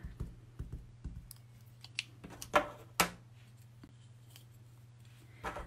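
A few light taps and clicks of a rubber stamp on a clear acrylic block being dabbed on an ink pad and handled, the two loudest taps close together about two and a half and three seconds in. A faint steady hum lies underneath.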